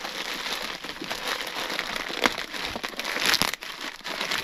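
Packaging rustling and crinkling as items are rummaged through and handled, with a few sharper crackles, the loudest about three seconds in.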